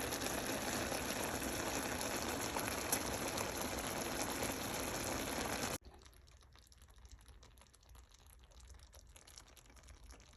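Steady sizzling hiss of food frying in a pan, cutting off abruptly about six seconds in, followed by near silence.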